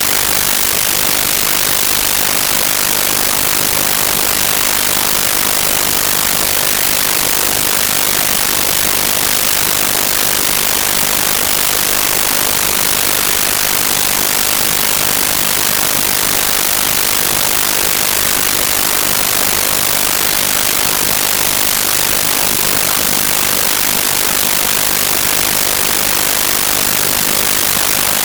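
Loud, steady hiss of static from a faulty audio recording, even and unchanging, with no other sound coming through.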